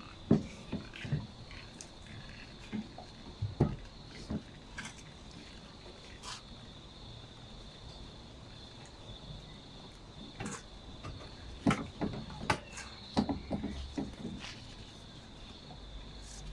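Scattered clicks and knocks of engine parts being handled and fitted during reassembly of a Briggs & Stratton 500E lawnmower engine, in a cluster near the start and again from about ten seconds in, with a quieter stretch between.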